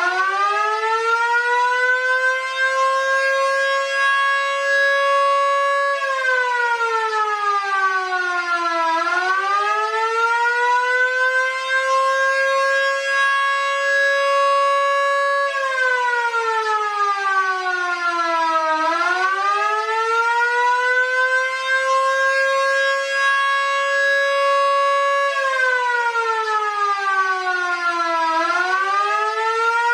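Vixen Horns VXS-1450 and mini Fedelcode Model 7 electric sirens run together on an attack signal, switched on and off as one. Each cycle winds up to full pitch, holds about six seconds, then winds down for about three seconds before power comes back on. The pitch rises four times and falls three times.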